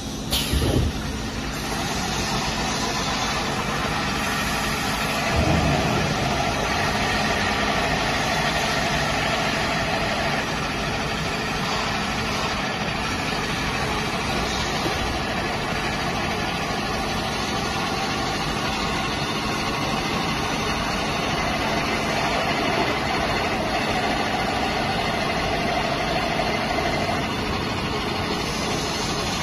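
Plastic pipe perforating machine running with a steady mechanical hum, with a low thump about half a second in and another around five and a half seconds.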